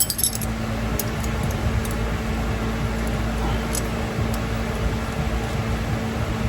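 Steady hum of running shop equipment, with a small cluster of light metallic clicks at the start and a few faint ticks after it as a brake line and its fitting are handled.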